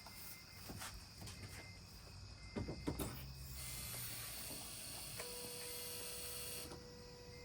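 Toyota Prius starting up after an oil change: a few clicks, a brief hiss, then a steady hum with a faint tone that sets in about five seconds in.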